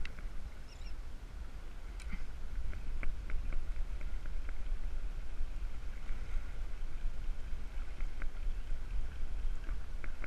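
Wind rumbling on the microphone and water lapping against a plastic kayak hull, with scattered small clicks and ticks.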